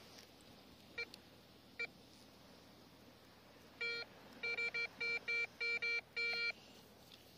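Metal detector beeping on a buried target. Two short blips come first, then a run of about eight quick beeps of the same pitched tone over nearly three seconds. The target is a small scrap of metal, a piece of a spent cartridge case.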